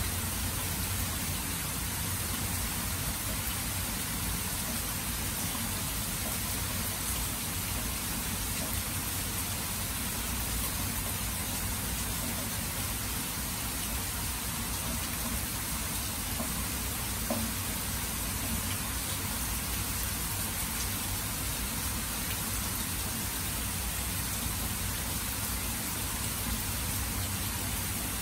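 Steady rain falling on grass and open water: an even, unbroken hiss with a low rumble underneath.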